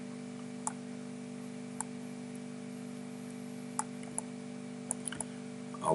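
Several faint computer mouse clicks, scattered irregularly, over a steady electrical hum.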